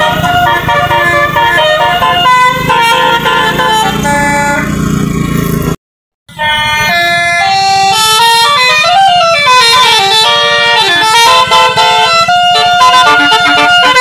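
Basuri telolet musical air horn on an Indonesian tour bus playing a tune of stepped notes. It cuts out briefly about six seconds in, then plays again with notes sliding up and down in pitch.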